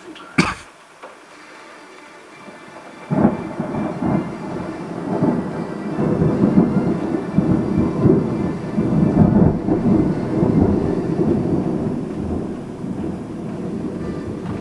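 Thunder: a sharp crack about half a second in, then about three seconds later a sudden deep rumble that rolls on in uneven waves, loudest in the middle and slowly dying away. Steady rain hisses underneath.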